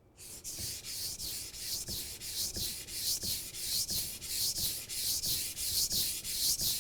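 A steel kitchen knife blade stroked back and forth on a wet whetstone: an even, rhythmic hiss of about three strokes a second.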